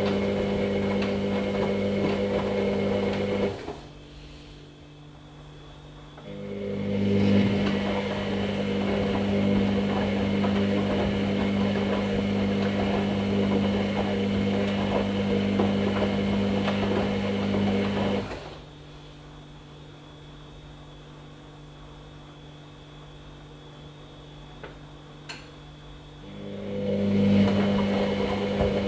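Hoover Nextra HNL662 washing machine's drum motor tumbling the wash in a stop-start rhythm. It runs with a steady hum, stops for a few seconds, ramps back up and runs for about twelve seconds, then stops for about eight seconds with only a faint hum left before starting again near the end.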